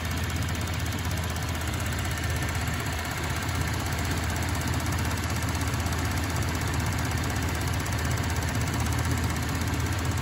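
2016 Chevrolet Colorado Z71's 3.6-litre direct-injection V6 idling steadily, recorded close under the open hood, with the constant ticking of its direct fuel injectors and valve train over the low engine rumble: the normal sound of a direct-injection engine, not a fault.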